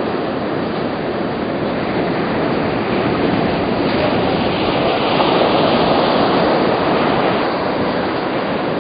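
Surf breaking and washing up a sandy beach: a steady rush of waves that swells a little midway.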